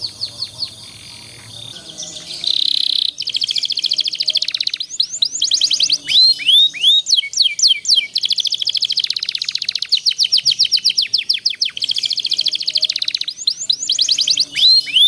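Canary singing a long song of fast rolling trills, broken by runs of sweeping chirps; the song is quieter for a moment at the start and then goes on loud and unbroken.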